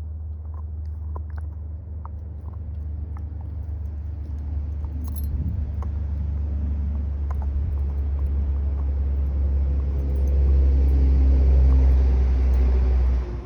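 A motor vehicle running close by, a steady low rumble that grows louder and then cuts off abruptly near the end, with scattered light clicks in the first half.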